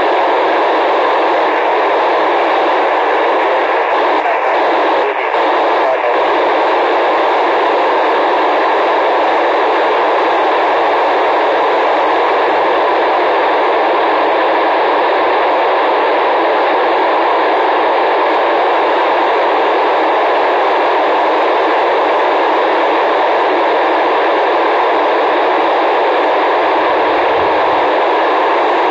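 Steady, loud hiss of an FM radio receiver with its squelch open, cut off above and below the voice range: no station is talking through the PO-101 satellite repeater at this moment.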